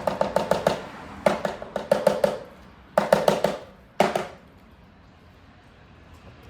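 Rapid clicking, about eight clicks a second, in four short bursts over the first four seconds, each click ringing briefly.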